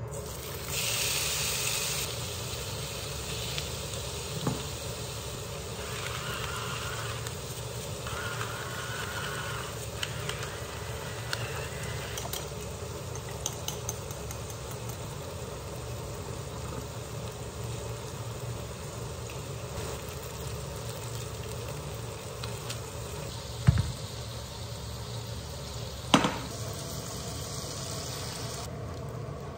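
Chicken pieces dropped into hot oil in a frying pan, a loud burst of sizzling about a second in, then frying with a steady sizzle. Two sharp knocks near the end.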